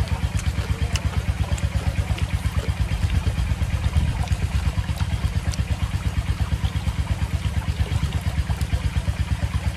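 A small engine running steadily at idle, an even low chugging of about seven beats a second.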